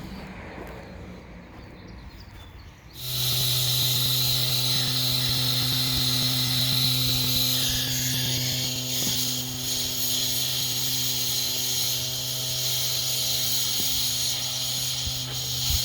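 A machine starts running about three seconds in and keeps going at a steady level: a low, even hum mixed with a strong hiss.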